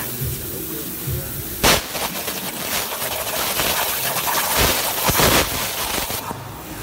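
CNC plasma cutter with a Hypertherm power source: a sharp crack as the arc fires and pierces the steel about one and a half seconds in. A crackling hiss follows while the torch cuts and stops shortly before the end.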